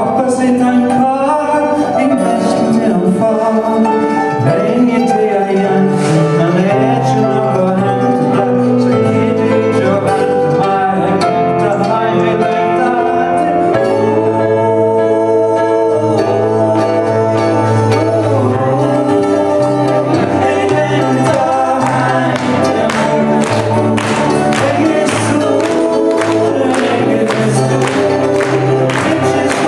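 Live acoustic band music: guitars and stage keyboard with singing. Rhythmic strummed chords grow stronger in the last several seconds.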